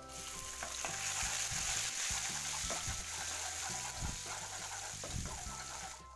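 Chopped garlic sizzling in hot oil in a nonstick frying pan as it is dropped in and stirred with a wooden spatula, with a few light knocks of the spatula against the pan. The sizzle starts at once and cuts off abruptly near the end, over faint background music.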